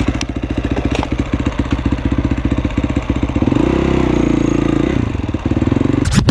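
Single-cylinder supermoto engine running as the bike pulls away and rides off, with even firing pulses. It revs up for about a second and a half past the halfway mark, then settles back. Music cuts in right at the end.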